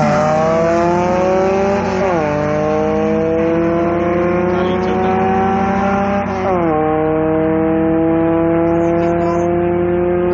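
Car engine accelerating hard at full throttle, its pitch climbing steadily through the gears. Two upshifts drop the revs, about two seconds and about six and a half seconds in. A steadier lower engine note runs underneath.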